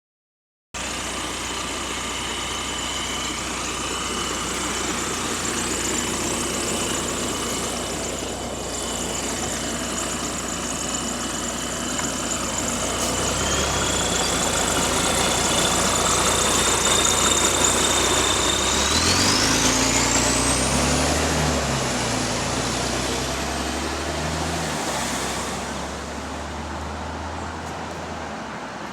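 Diesel engine of a London bus running with an exhaust leak, alongside a steady high whine. About 19 s in, the whine sweeps steeply up in pitch as the engine note rises, then the sound eases off near the end.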